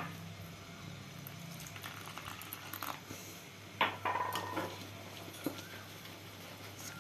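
Wire whisk scraping and clinking against a stainless-steel bowl as gram flour is mixed with water into batter, with a sharper clink about four seconds in. A steady low hum runs underneath.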